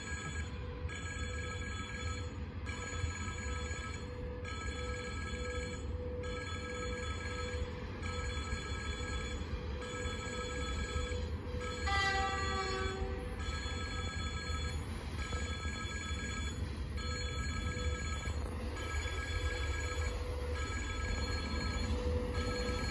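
Railway warning signal ringing in a steady repeating pattern, about one ring a second, warning of an approaching train. Wind rumbles on the microphone, and a short falling whistle-like call comes about twelve seconds in.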